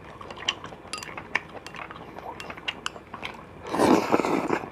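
Chewing with small wet clicks and chopstick clinks, then a loud slurp of hot soup from a small bowl lasting about a second, near the end.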